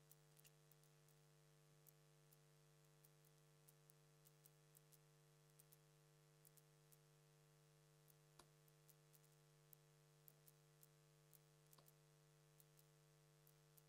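Near silence: faint room tone with a low steady hum and scattered faint ticks and clicks at irregular intervals.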